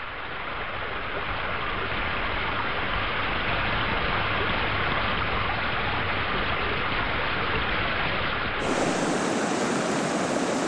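Snowmelt mountain stream rushing steadily over rocks. About eight seconds in it changes to a fuller rush of fast, turbulent river water.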